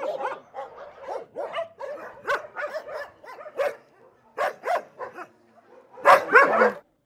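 Dogs barking repeatedly in short calls, with a louder run of barks about six seconds in that cuts off suddenly.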